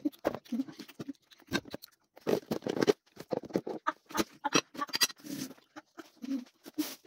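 Eating noises from a child spooning and licking ice cream: wet mouth sounds and lip smacks in quick, irregular bursts, with a few short throaty sounds.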